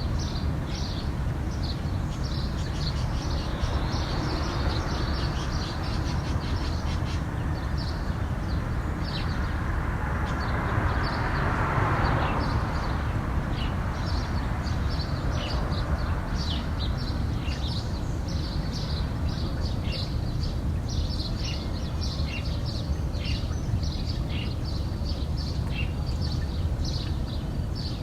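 Many small birds chirping in quick, overlapping high calls at dawn, over a steady low rumble. Near the middle a rushing noise swells up and fades away over a few seconds.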